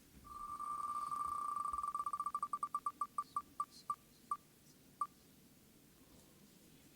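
Prize wheel spinning: a fast run of short, same-pitched ticks that slow down steadily as the wheel loses speed, the last few well spaced, until it comes to rest about five seconds in.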